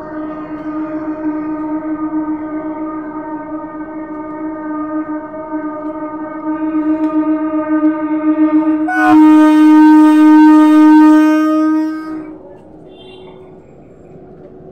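An ICF-built EMU local train's horn blowing one long steady note for about twelve seconds. It gets louder and harsher about nine seconds in, then cuts off.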